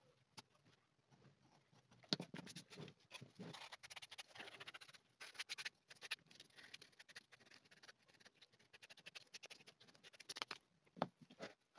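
Hands handling and rubbing small pieces of Crazy Horse leather on a cutting mat: faint dry scratching and rustling with many quick clicks. The sound is busiest from about two seconds in until near the end, and two sharper ticks follow.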